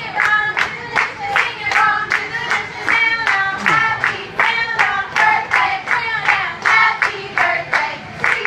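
A group of women singing a birthday song together while clapping in a steady rhythm, about three claps a second.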